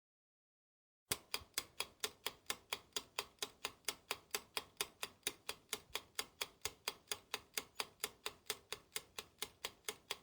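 Clock ticking, an even run of sharp ticks at about four a second, starting abruptly about a second in after dead silence.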